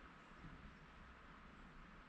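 Near silence: a faint, steady hiss of background ambience.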